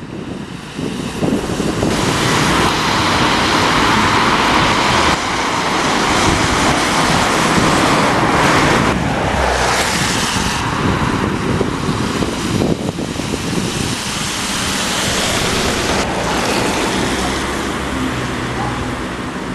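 Road traffic passing: buses and cars going by, mostly a loud tyre hiss that swells and fades as each vehicle passes, with wind buffeting the microphone.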